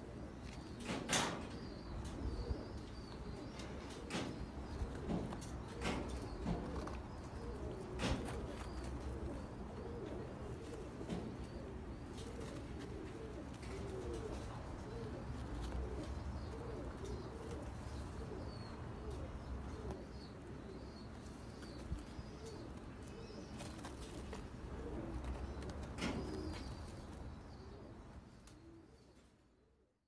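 Domestic pigeons cooing repeatedly in a loft, low rolling calls, with a few sharp clicks in between. The sound fades out near the end.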